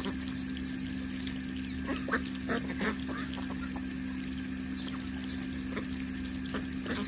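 Ducks dabbling and pecking with their bills in a plastic tub of water, giving a few short wet clicks and splashes about two to three seconds in, over a steady low hum.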